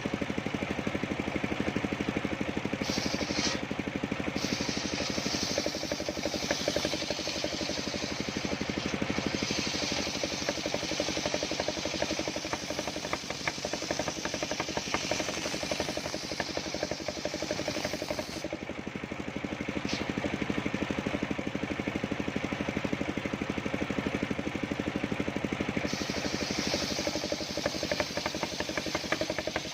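Engine of a homemade circular sawmill running steadily. A high hiss joins it about three seconds in, drops out about eighteen seconds in, and comes back about twenty-six seconds in.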